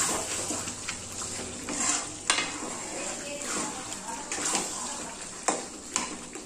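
A metal spatula stirs and scrapes thick chicken curry in a steel kadai, with a few sharp clinks against the pan and a faint sizzle of the nearly cooked curry.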